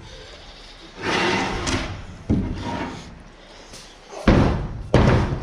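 Heavy angle-iron ramp door of an enclosed car-hauler trailer being swung up and slammed shut: a rattle, a knock, then two loud bangs about four and five seconds in, the first the loudest.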